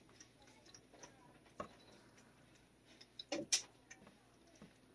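Faint scattered clicks and taps from a long-handled brush being worked against a cat's chest, with a cluster of sharper ticks about three and a half seconds in.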